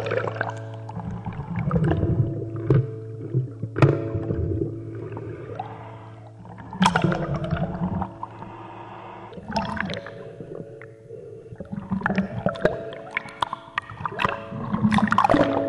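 Bath water sloshing and gurgling around a waterproof camera as it moves under and above the surface, with a few sharp knocks. A steady hum of several held tones sounds through much of it, dropping out now and then.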